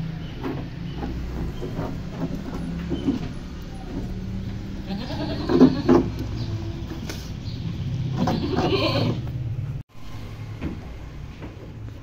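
Goats bleating, with two louder calls about five and eight seconds in, over a steady low hum.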